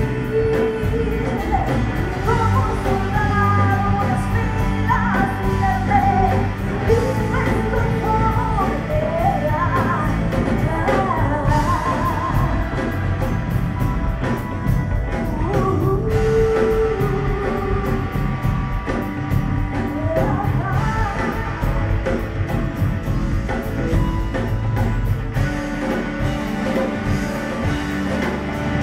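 Live rock band playing: a woman singing over electric guitars, electric bass, drums and cello.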